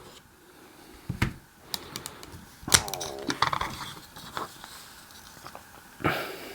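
Hand clamps being released from a plastic toy part and handled: a few sharp clicks and knocks, with quieter handling noise between.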